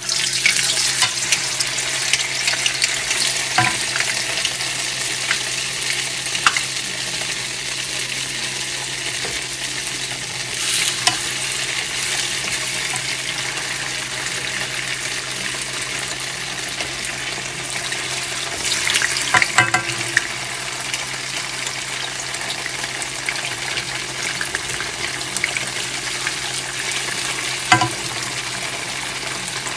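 Food sizzling in hot oil in a pan, starting suddenly as it goes into the oil and then frying steadily, with a few clicks and scrapes of a utensil against the pan.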